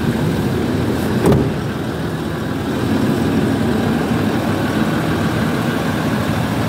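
A 2009 Range Rover Sport's 2.7-litre TDV6 V6 turbodiesel idles steadily and sounds healthy. Two sharp knocks about a second in come from the driver's door being shut.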